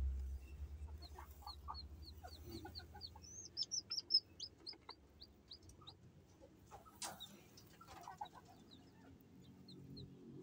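Newly hatched chick peeping: a long run of short, high chirps repeated several times a second, busiest in the middle. A low rumble underlies the first couple of seconds, and there is a single knock a little past the middle.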